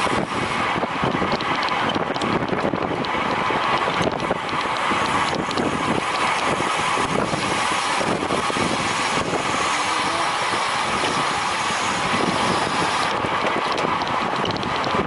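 Steady wind rush over the microphone of a camera moving at speed, continuous with no breaks.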